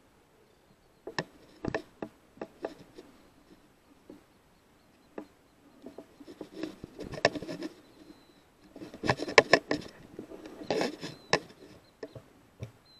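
Handling noise of a rifle-mounted night-vision scope: irregular clicks, knocks and rubbing as the rifle is shifted and aimed, busiest and loudest near the end.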